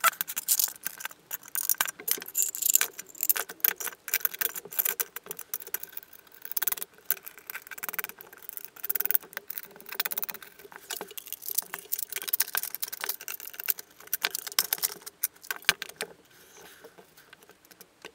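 Small metal screws and nuts clinking and rattling as they are picked up and fitted through 3D-printed plastic bridge pieces, with many quick, irregular clicks and taps. The clicking thins out near the end.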